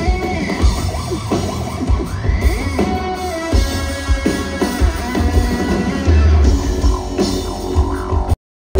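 Live rock concert music over a venue PA: pounding drums and heavy bass under a high, gliding melody line. The sound cuts out to silence for a split second near the end.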